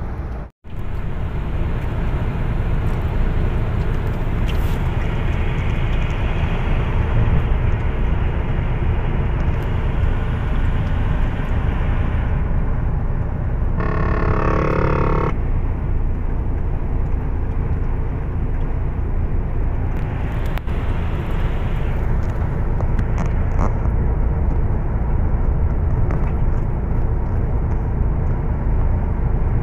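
Steady low rumble of a truck's engine and tyres at motorway speed, heard from inside the cab. The sound drops out briefly just after the start, and a short, different sound lasting about a second and a half comes about halfway through.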